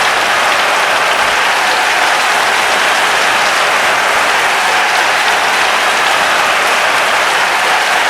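A large crowd applauding steadily, dense clapping with some cheering mixed in.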